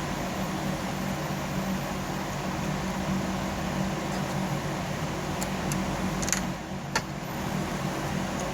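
Steady mechanical hum with a few sharp clicks a little over two-thirds of the way through, the hum dipping briefly between them.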